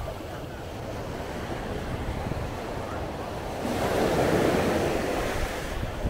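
Mediterranean sea waves washing onto the beach, one wave breaking and surging louder for about two seconds from near the middle. Wind buffets the microphone.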